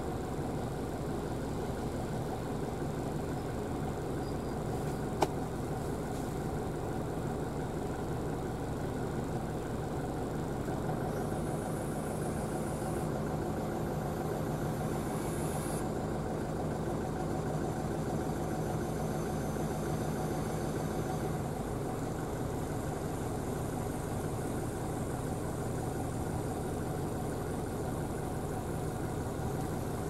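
Steady car engine hum with road noise, heard from inside the cabin, with one sharp click about five seconds in.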